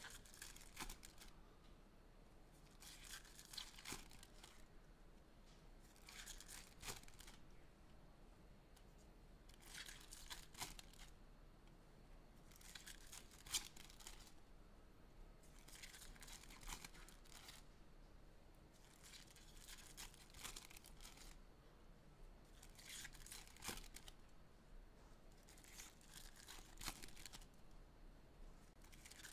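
Faint crinkling tears of foil trading-card pack wrappers being ripped open one after another, a short burst about every three seconds.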